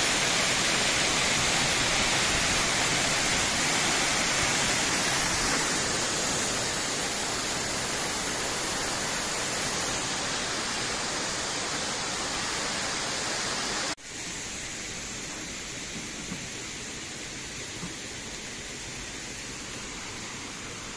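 A waterfall's water rushing steadily over rock. It cuts off suddenly about two-thirds of the way through, leaving a quieter outdoor hush with a couple of faint clicks.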